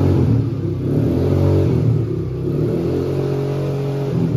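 Xtreme 300cc quad bike's oil-cooled engine running just after a self-start, its revs rising and falling a few times as the throttle is blipped.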